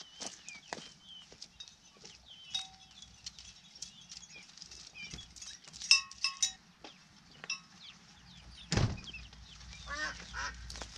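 Chickens clucking and small birds chirping in short calls, with one thump near the end as a plastic oil drain pan is set down on gravel.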